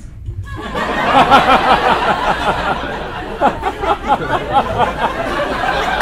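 Comedy club audience laughing and cheering, starting about half a second in, with scattered clapping that grows toward the end.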